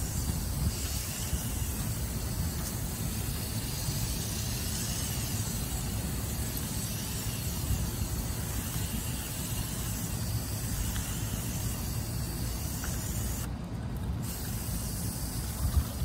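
Hose-fed foaming coil-cleaner gun hissing steadily as it sprays soapy cleaner onto a heavily soiled condenser coil, over a steady low rumble. The spray breaks off for under a second near the end.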